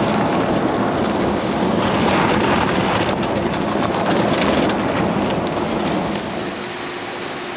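Steady rushing noise with no clear pitch, easing off a little near the end.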